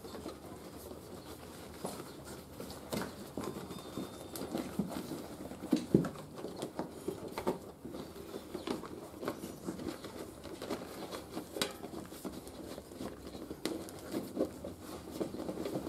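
Rubber motorcycle inner tube being pushed and fed by hand into a knobbly tyre, giving soft irregular rubbery rustling with scattered light knocks and clicks, the sharpest about six seconds in.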